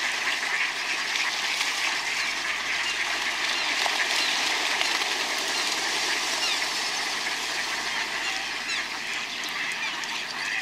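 A flock of ducks splashing about in water and quacking, a dense, steady churn of splashes and calls.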